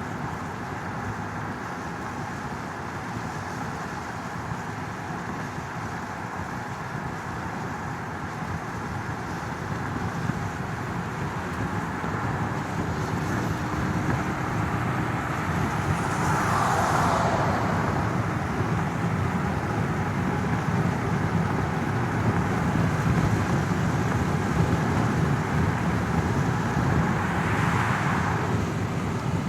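Car and road traffic noise, a steady rumble and hiss that grows louder partway through. Two brief hissy swells come about halfway through and again near the end.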